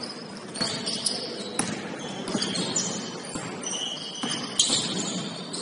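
Basketball game play on a court: sneakers squeaking in short high chirps and a basketball bouncing in irregular knocks.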